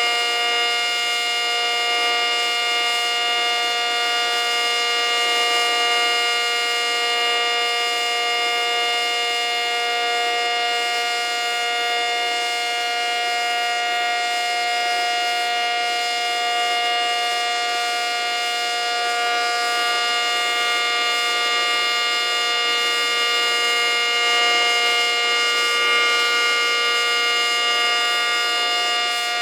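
ACA Cyclone 125 electromechanical outdoor warning siren sounding a steady tone, several pitches held together without rising or falling, its loudness swelling and easing slightly.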